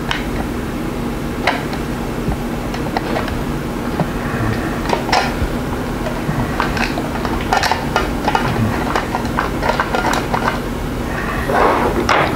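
Small metallic clicks and clinks of a screwdriver turning the screws that hold a variac's steel front cover. They come irregularly, with a louder clatter near the end.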